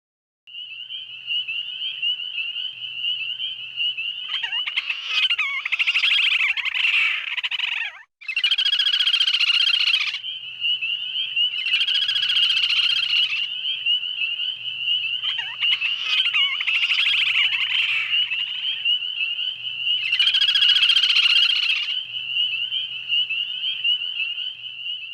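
Night ambience of frogs calling: loud pulsing bursts of croaking come about every four seconds over a steady high trill, with a brief cutout about eight seconds in.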